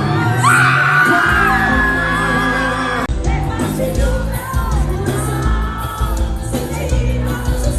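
Amplified forró music with singing. A long high note is held from about half a second in until about three seconds, and then a pulsing bass beat takes over under the melody, with some yelling from the crowd.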